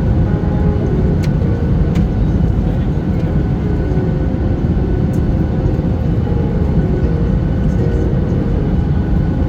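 Airliner cabin noise: a loud, steady low rumble of engines and airflow, with a couple of faint clicks.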